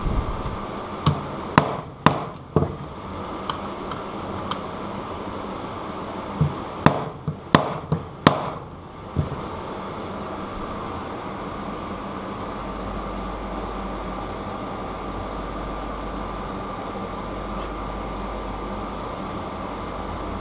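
Scattered sharp metallic clicks and knocks from bicycle cassette parts and tools being handled, a quick cluster of them a little past the middle, over a steady background hum. From about two-thirds of the way in only the hum and a low rumble remain.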